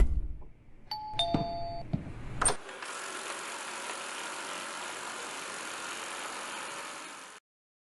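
Robot vacuum cleaner (eufy RoboVac 11S) giving a two-note descending electronic beep, then a click, then running with a steady whirring hiss that cuts off suddenly near the end.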